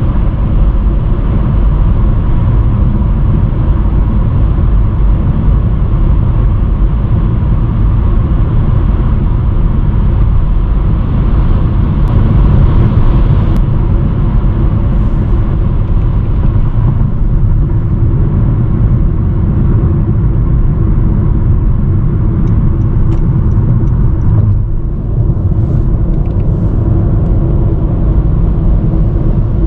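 Honda Vezel driving at expressway speed: a steady low rumble of road and engine noise, with a brief drop in loudness near the end.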